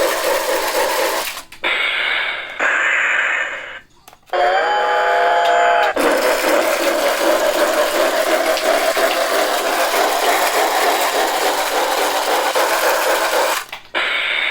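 Novelty locomotive alarm clock running its train effect: a rhythmic chugging that breaks off twice, a steady whistle for about two seconds starting around four seconds in, then chugging again until shortly before the end.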